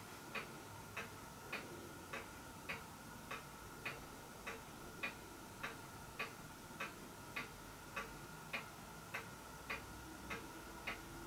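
Faint, even ticking, a little under two ticks a second, over a faint steady hum.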